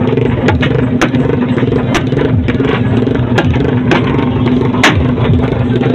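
Motorcycle engines running and revving in a loud, steady din, with a few sharp clicks.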